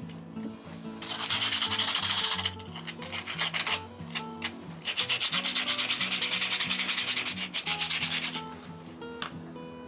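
Rapid back-and-forth hand scrubbing of a rusty hammer head with an abrasive, about eight strokes a second, in two spells: one short, then a longer one from about five seconds in.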